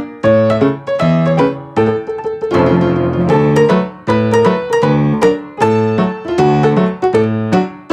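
Background piano music: a lively run of quick, struck notes that never pauses.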